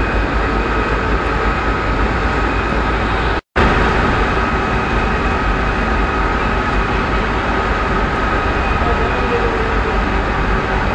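Steady, loud din of tea-factory machinery: electric motors driving conveyor belts and a rotating drum, with a constant high whine over the rumble. The sound cuts out for an instant about three and a half seconds in.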